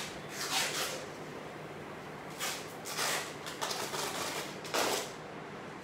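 Clear plastic bag crinkling in several short, irregular rustles as it is handled.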